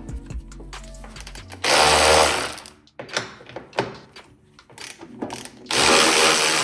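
A power tool run in two bursts of about a second each, loosening fasteners on a car's suspension, with clicks and knocks of tools and parts between the bursts.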